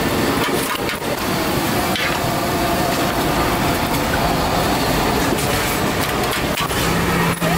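Roadside frying din: prawns sizzling on a large flat griddle, with scattered clinks and scrapes of a steel bowl and spatula on metal as they are scooped up and tipped into a steel bowl. A low steady hum comes in near the end.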